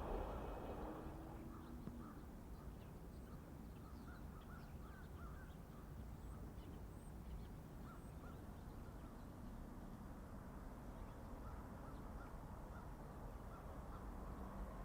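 The noise of a passing Amtrak train fades away over the first couple of seconds, leaving a quiet snowy field where birds call faintly and repeatedly.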